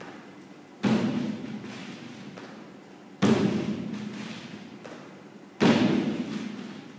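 Feet landing on a wooden plyo box during box jumps: three heavy thuds about two and a half seconds apart, each with a long echoing tail.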